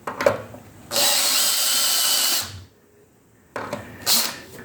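Electric drill running for about a second and a half, drilling out a broken bolt in steel, with a few clicks before it starts. The short run is the final clean-up of the steel around the bolt hole. There is a short hiss near the end.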